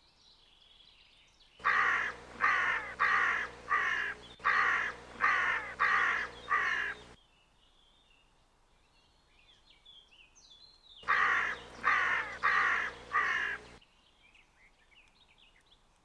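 A crow cawing loudly: a series of eight harsh caws, a pause of a few seconds, then four more. Faint small-bird chirps come between the series.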